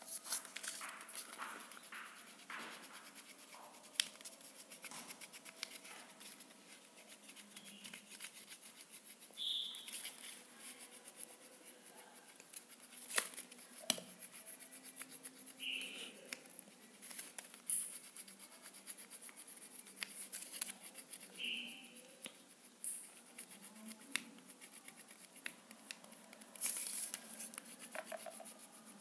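Wax crayon scratching and rubbing across folded paper in uneven strokes, with paper rustling and scattered light clicks.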